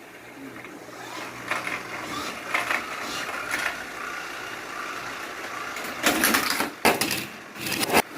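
Die-cast toy cars rolling and rattling along plastic Hot Wheels track, with faint knocks about once a second, then loud clattering in several short runs from about six seconds in.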